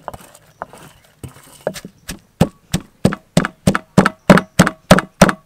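Wooden pestle pounding chopped shallots, garlic and red chillies in a mortar: dull knocks, a few at first, then a steady beat of about three strikes a second from about two seconds in, growing louder.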